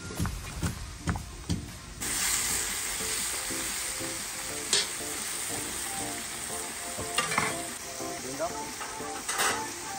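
Knife chopping onion on a plastic tray with sharp clicks, then, about two seconds in, lamb sizzling in hot oil in a cast-iron kazan: a steady hiss. A few scrapes and clatters come as it is stirred with a metal slotted spoon and sliced carrots are tipped in.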